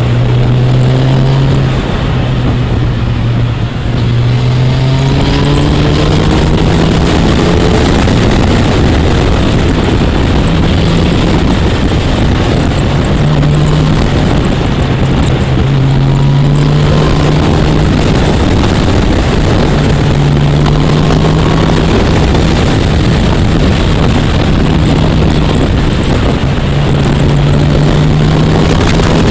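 Motorcycle engine running under way, its pitch climbing over the first several seconds as it accelerates, then holding a steady cruise with small rises and falls. A heavy rush of wind noise runs over it.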